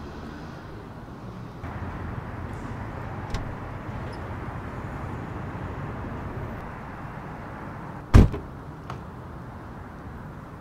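Steady background hum of street ambience, with a single loud thud of a car door about eight seconds in.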